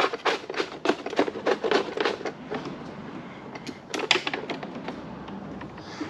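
Hands working among cables and wiring inside a scooter's frame, feeding a choke cable through: quick clicks and rattles for the first couple of seconds, then a few scattered clicks about four seconds in.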